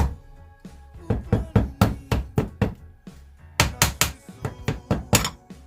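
Repeated sharp knocks of a tool tapping on a stuck part of a Honda GL1200 carburettor to free it, coming in quick runs of several taps a second with short pauses. Background music runs underneath.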